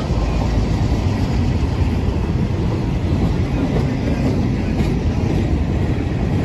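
Freight train cars rolling past close by: a steady rumble of steel wheels on rail.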